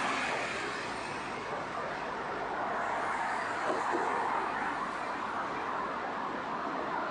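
Steady noise of city road traffic going by, with no single vehicle standing out.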